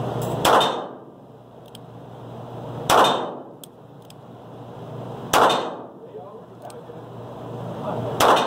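Four gunshots from a short-barrelled .38 revolver ("canela seca"), fired one at a time about two and a half seconds apart, each shot echoing briefly off the indoor range's walls.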